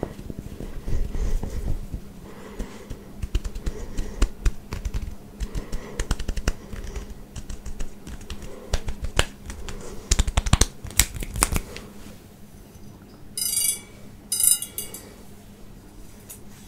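Fingers scratching and rubbing short buzzed hair, a dense crackling run of rapid clicks that stops about twelve seconds in. Then two short bright ringing bursts about a second apart, as the metal prongs of a wire head massager are handled.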